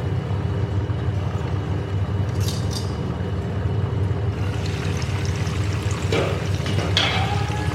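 Water being poured and splashing, building up in the second half with a couple of sharper splashes near the end, over a steady low hum.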